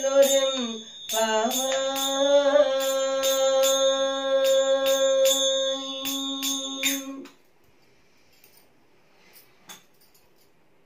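A woman sings the closing refrain of a Tamil devotional verse, holding one long final note, while striking small metal hand cymbals in a steady beat with a bright ringing. Voice and cymbals stop together about seven seconds in, leaving only a few faint clicks.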